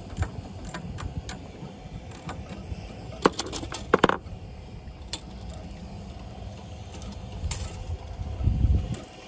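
Stainless-steel wire fender basket rattling and clinking against the bow rail's metal bracket as it is handled and adjusted. Sharp metallic clinks come a little over three seconds in, then a clink that rings briefly at about four seconds. A low rumble comes near the end.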